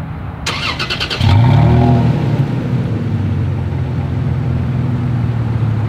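Toyota Tacoma 3.5-litre V6 cold-starting, heard at the single tailpipe: the starter cranks briefly, the engine catches about a second in with a short rev flare, then settles into a steady idle.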